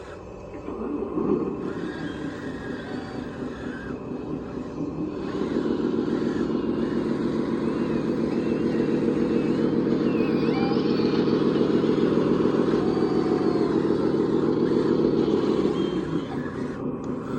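Radio-controlled construction machine running with a steady engine-like drone and a fast pulsing ripple. It grows louder about five seconds in, holds there, and eases off briefly near the end.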